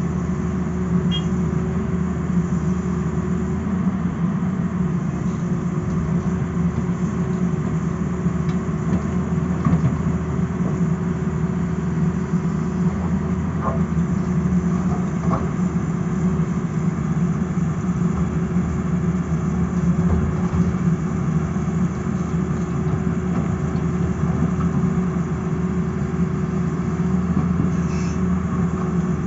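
Tata Hitachi crawler excavator's diesel engine running steadily while it digs, a low drone with a steady whine over it. A couple of faint knocks come about halfway through.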